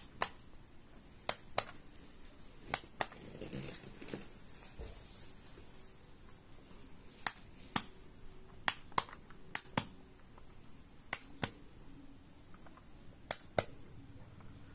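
Rocker switches on an Omni extension cord clicking as they are pressed on and off again and again: sharp clicks, mostly in pairs, about eight pairs in all.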